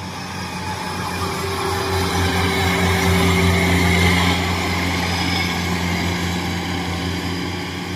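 Kubota tracked rice combine harvester's diesel engine running steadily under load as it cuts, louder as the machine passes close about three seconds in and easing slightly after. It is cutting lodged, flattened rice at reduced speed.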